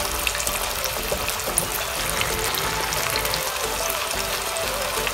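Whole boiled potatoes deep-frying in hot mustard oil in a kadhai: a steady sizzle with fine crackling.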